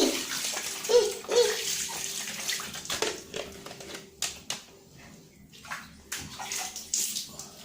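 Water splashing and sloshing in uneven bursts as ceiling fan parts are washed by hand, with a few sharp splashes about three to four and a half seconds in.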